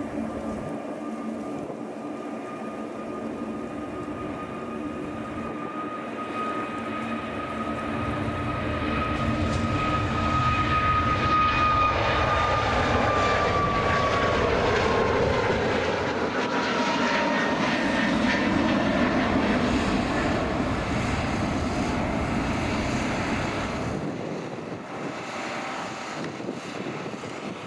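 Boeing 737 MAX 8's CFM LEAP-1B turbofans at takeoff power during the takeoff roll, liftoff and climb-out: a steady fan whine over a wide roar that drops in pitch as the jet passes. It grows louder toward the middle and fades near the end.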